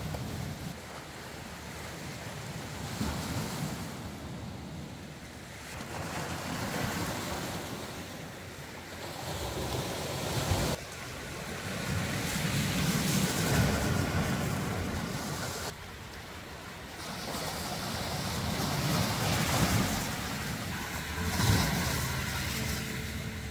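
Sea waves breaking and washing up on a beach, swelling and falling back every few seconds.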